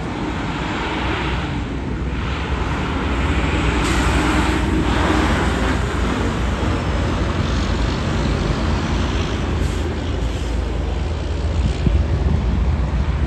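Semi-trucks driving past: a steady low diesel engine drone with tyre and road noise, loudest about four to six seconds in and again near the end.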